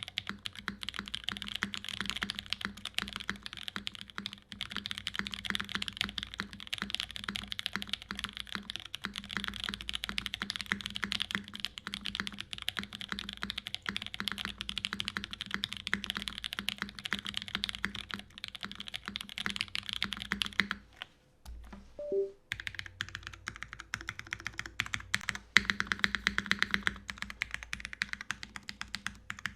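Custom Dalco 959 mini mechanical keyboard with an aluminium plate, lubed Pewter switches and GMK keycaps being typed on in a fast, continuous run of keystrokes. The typing stops for about a second and a half roughly two-thirds of the way through, then resumes with some heavier strokes.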